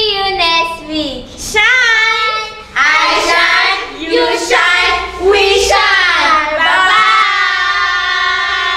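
A group of children's and women's voices singing together, ending on one long held note near the end.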